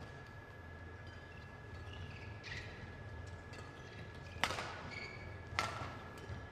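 Two sharp knocks about a second apart, ringing on in a large sports hall, over a steady faint whine and low hum of the hall.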